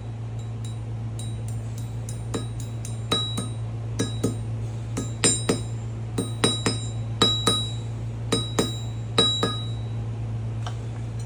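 Many irregular glassy clinks, each with a short bright ring at the same pitches, some louder than others, over a steady low hum.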